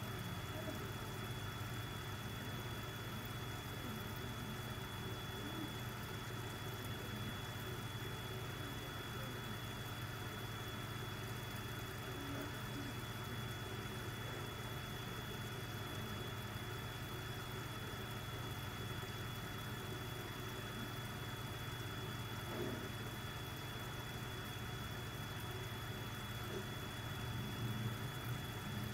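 Aquarium air pump running with a steady low hum and a thin, constant high whine, feeding an air stone bubbling in the tank.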